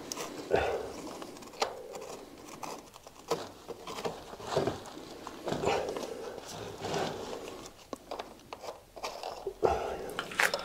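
Scattered clicks, scrapes and knocks of a water pipe fitting being screwed up and tightened by hand against a stone wall.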